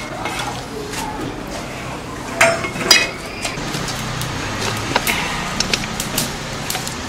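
Kitchen utensil knocks and clinks from a cleaver, a wooden chopping board and steel bowls. Two sharp knocks come about half a second apart, a little over two seconds in, and a few lighter clinks follow near the end, over a low steady hum.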